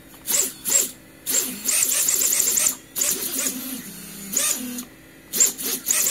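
Racerstar 2205 brushless motors, without propellers, spinning up on the bench after the quad is armed: a whirring whine that rises and falls in pitch with repeated short throttle blips and one longer run of about a second and a half. They run smoothly, with no jitter.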